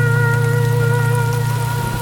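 Rain falling steadily under the song's closing held notes, a deep bass note and a higher sustained tone. The bass note stops near the end, leaving the rain and the fading high tone.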